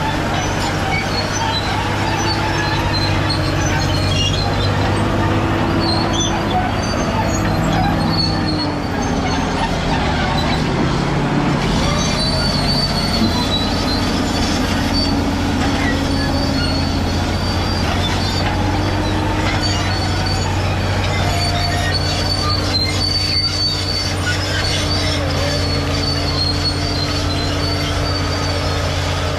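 Caterpillar D7G crawler bulldozer working with its diesel engine running steadily under load, while its steel tracks squeal and grind as it moves, with occasional knocks.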